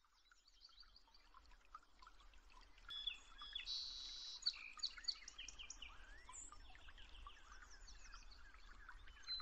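A chorus of many birds chirping, trilling and whistling, fading in from silence over the first few seconds, with a faint low hum beneath.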